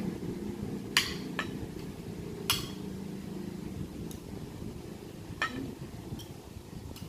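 Metal spoon and fork clinking against a plate while eating, about half a dozen sharp clinks spaced irregularly a second or so apart over a low background rumble.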